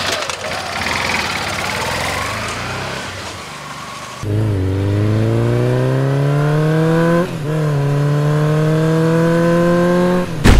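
Motorcycle engine revved hard, then accelerating: after a rough, noisy opening its note climbs steadily in pitch, drops at a gear change about seven seconds in, and climbs again until it cuts off near the end.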